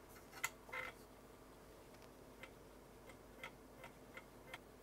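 Faint, irregularly spaced clicks from an Amiga 500's floppy drive, its head stepping as the machine boots Workbench 1.3 from disk, about nine ticks in all.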